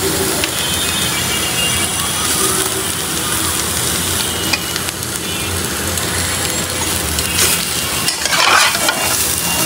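Chunks of boiled meat sizzling steadily in a wok-style pan over a gas burner, being stirred and turned with a metal spatula. The meat is frying in its own fat without added oil.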